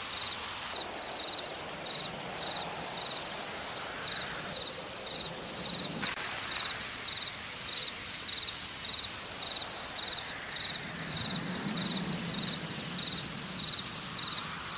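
Night ambience: a cricket chirping in a steady, even train of short high-pitched pulses, a few each second, over a soft hiss. A low sound swells briefly about two-thirds of the way in.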